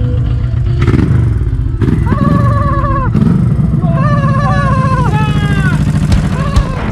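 An 1100 cc Honda V-twin custom bagger motorcycle engine running steadily with an even low pulse. Two long wavering tones rise above it in the middle of the stretch.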